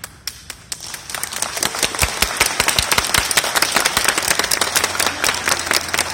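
Audience applauding: a few scattered claps that swell about a second in into dense, steady applause, with a few low thuds among the claps.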